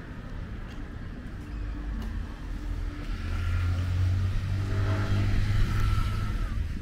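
A car passing close by, its engine hum building over a few seconds, then dropping away near the end.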